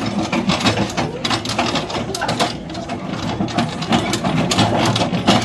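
Hand-pumped rail handcar being driven along its track, its lever mechanism clattering with a rapid, steady rattle of clicks.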